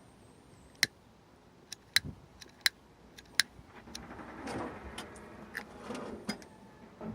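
A handful of sharp clicks and taps, then a couple of seconds of rattling and scraping, like small hard parts being handled.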